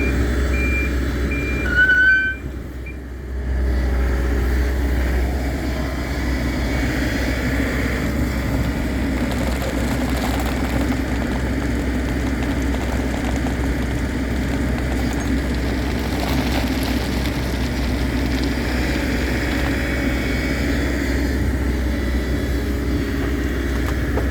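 Heavy diesel excavator engine running steadily. A reversing alarm beeps over it for the first couple of seconds, before a brief dip in level.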